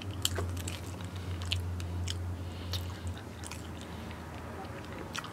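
Close-miked mouth chewing a mouthful of food: scattered wet clicks and smacks, busier in the first few seconds and thinning out toward the end, over a steady low hum.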